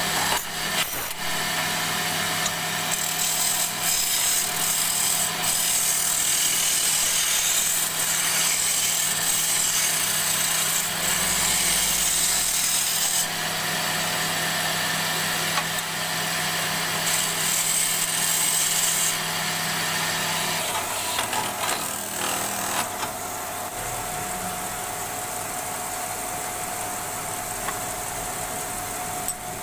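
Wood lathe running with a steady motor hum while a turning tool cuts a spinning wooden hammer handle, giving a loud continuous hiss of shaving. The cutting hiss eases off about twenty-three seconds in, and the lathe hum carries on.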